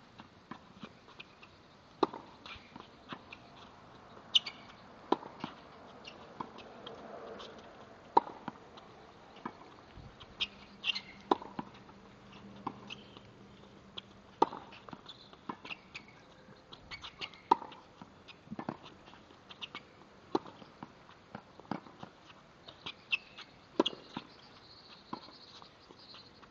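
Tennis balls struck by a racket and bouncing on a hard court: sharp pops about every three seconds, with fainter knocks in between.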